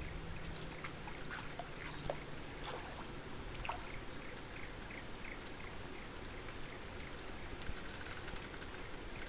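River water running steadily, with faint high insect chirps and a few small clicks.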